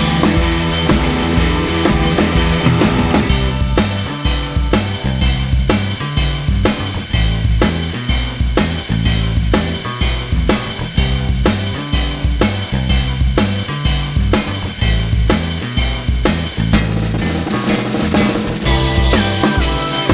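Loud music with a steady drum-kit beat: bass drum and snare, with a changing bass line.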